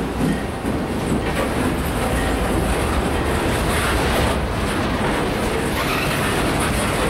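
Freight train of loaded center-beam flatcars rolling past: a steady rolling noise of steel wheels on the rails, with a few clicks mixed in.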